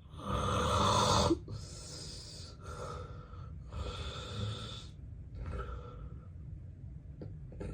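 Heavy, noisy breathing of a sleeping man with severe obstructive sleep apnea, made up of a run of rough breaths. The first breath is the loudest and cuts off sharply about a second and a half in.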